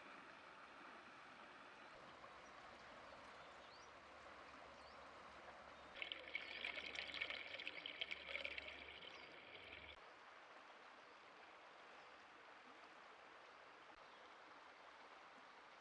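Faint, steady rush of flowing water. About six seconds in, a louder crackling hiss starts abruptly and lasts about four seconds before cutting off.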